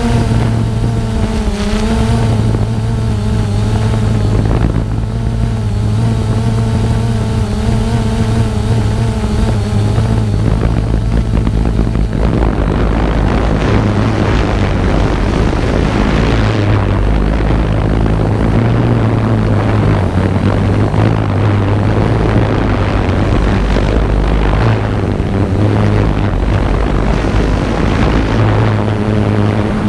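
Multirotor drone's motors and propellers humming steadily, their higher whine wavering in pitch as the motor speeds change over the first ten seconds or so. From about twelve seconds in, a rushing noise joins the hum: wind on the microphone.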